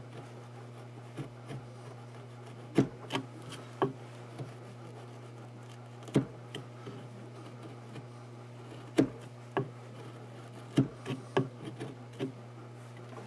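A wide chisel pushed by hand, paring thin shavings from a wooden rifle buttstock: about ten short, sharp cuts at uneven intervals, over a steady low hum.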